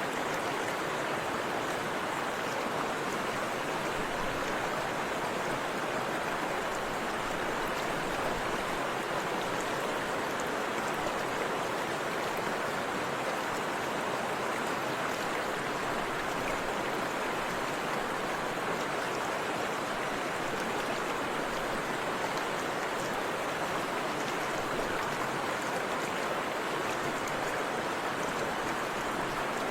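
Forest river water rushing and splashing steadily, an even, unbroken sound with no distinct events.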